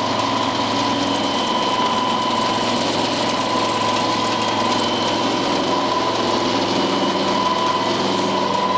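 Horizontal ring die feed pellet mill running steadily while pressing feed mash into pellets: a constant machine hum with a steady high whine over it.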